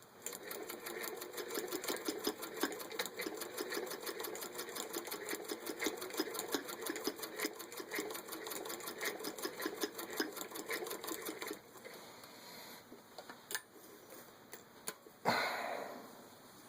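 1929 Singer 206D zigzag sewing machine, turned by hand crank, sewing a zigzag stitch from the center needle position. It makes a steady, rapid clatter of stitches that stops about 11 seconds in, followed by a couple of separate clicks and a louder knock near the end.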